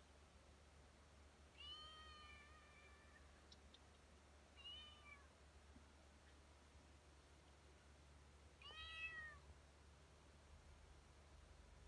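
Calico cat meowing three times: a long meow about two seconds in, a short one about five seconds in, and one that rises then falls in pitch near nine seconds.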